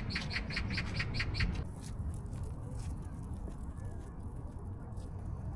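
A bird calling in a quick, even run of short high chirps, about five a second, which stops about a second and a half in, over a steady low rumble.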